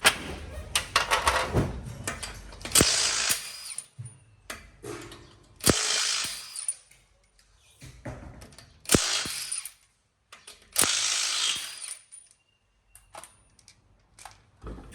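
Power wrench run in about five short bursts of roughly a second each, each burst starting with a sharp click.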